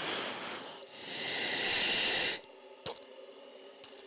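Fighter-jet cockpit audio recording: two swells of rushing hiss that stop suddenly about two and a half seconds in, leaving a quieter steady hum and a single click.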